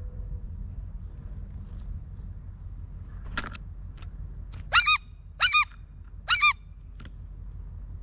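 Blue jay calling three times, short loud notes about two-thirds of a second apart, each one rising and falling in pitch. A single knock comes about a second before the first call.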